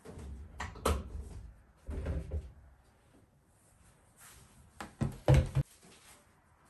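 Plastic toiletry and cleaning bottles knocking and clunking as they are picked up off a shower ledge and handled. There are a few separate knocks, the loudest cluster about five seconds in.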